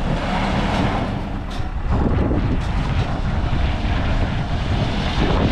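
Scania V8 truck engine running steadily as the tractor unit draws out an extendable low-loader trailer to telescope its deck.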